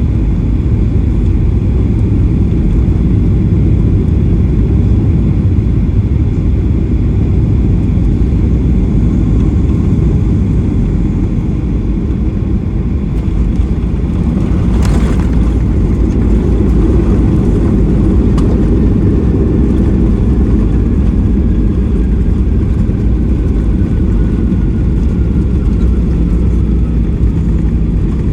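Cabin noise inside a Boeing 737-800 heard from a rear window seat: a steady, loud low rumble of engines and airflow, with a short burst of hiss about halfway through and a faint whine slowly falling in pitch in the second half.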